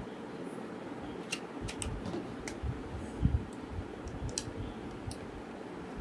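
Light clicks and small knocks as a 2.5-inch laptop hard disk is handled in its drive bay and shifted against its SATA connector, over a steady low hiss. The clicks come scattered from about a second in, with one louder dull knock midway.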